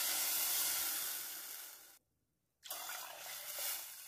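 Water pouring from a glass jug into a stainless steel saucepan of dry rice, a steady splashing fill. About halfway through it stops dead for under a second, then the pour resumes.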